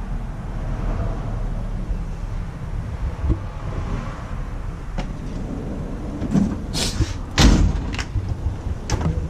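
Metal tool box drawers of a Snap-on Epiq roll cab sliding shut and open, with several sharp knocks and rattles in the second half, the loudest about two thirds of the way in, over a steady low rumble.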